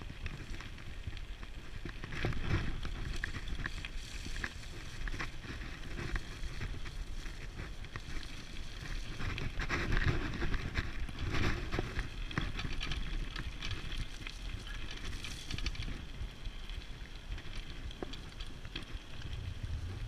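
Diggler dog scooter rolling fast over a rough dirt and mud track: a steady rumble of tyres on the ground, with many sharp rattles and knocks as the frame and brakes jolt over bumps.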